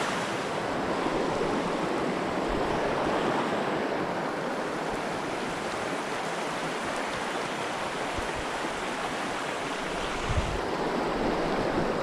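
Small mountain creek rushing steadily over shallow rocky riffles, with a soft low bump near the end.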